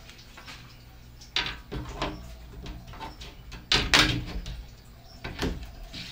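Glass door panes of an Animal Plastics plastic reptile cage being set into its track and slid along it, with a few short knocks and clunks, the loudest about four seconds in.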